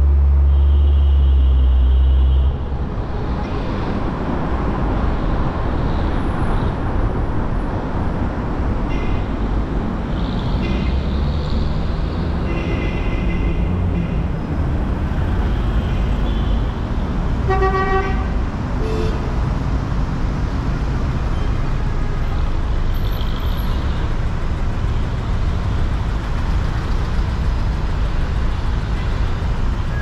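City street traffic: a steady rumble of car engines and tyres, with car horns beeping on and off throughout, one horn standing out a little past halfway. A heavy low rumble fills the first two seconds and then drops away.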